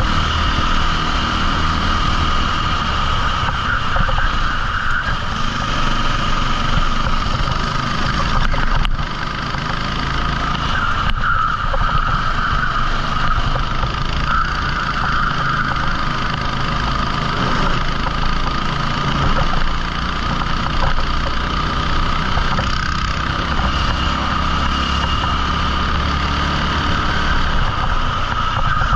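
A 14 hp rental kart engine running hard under race load, its note rising and easing in turn, with brief dips in loudness about nine and twenty seconds in.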